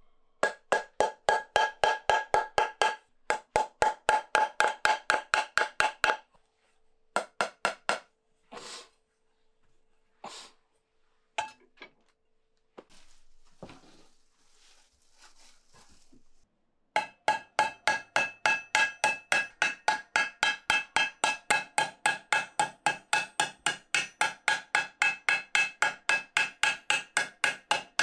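Hand hammer striking a metal pan held on a steel stake: quick ringing metal blows, about four or five a second. About six seconds in the hammering stops, leaving only a few scattered strikes, then a steady run of blows starts again about seventeen seconds in.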